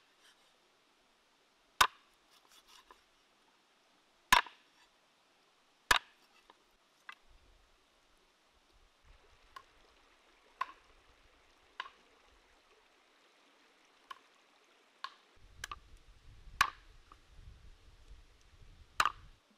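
Cleaver chopping raw chicken on a wooden chopping block: three sharp, loud chops about two seconds apart in the first six seconds, then lighter knocks and taps at uneven intervals. A low rumble runs under the last few seconds.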